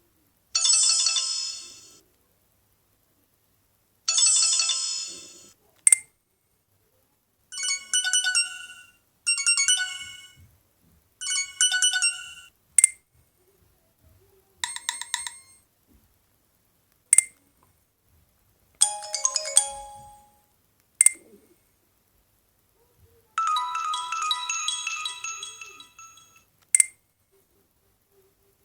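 Mobile phone ringtones from an Alcatel One Touch OT-810, played one after another: about eight short electronic melodies, each cut off after one to three seconds. A single short, sharp beep falls between most of them.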